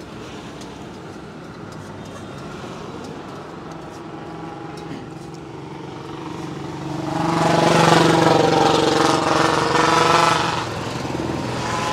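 Road traffic: a motor vehicle passing close by, its engine growing louder from about six seconds in, loudest near eight seconds, then fading by about ten and a half seconds, over a steady background of traffic noise.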